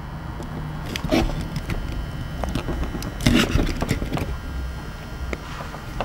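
Heavy-duty crimpers squeezing an Anderson plug terminal onto heavy cable: a few sharp clicks and creaks of the tool's jaws biting into the terminal, the loudest about three seconds in.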